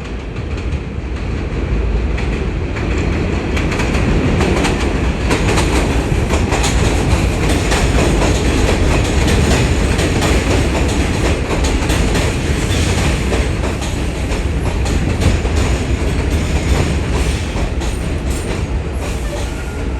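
New York City subway train running through the station, its wheels clattering over the rail joints. The noise builds over the first couple of seconds, then holds loud and steady.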